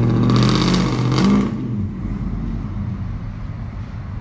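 Chevrolet Silverado pickup with a 3-inch Magnaflow bullet muffler accelerating away. The exhaust holds a steady high note for about a second, drops off about a second and a half in, and settles into a lower rumble.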